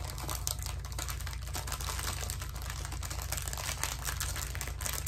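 Clear plastic bags of diamond-painting drills crinkling as they are handled, with a dense, continuous patter of small clicks from the drills shifting inside.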